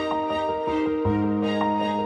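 Background music with a steady beat and held notes; the bass moves to a new note about a second in.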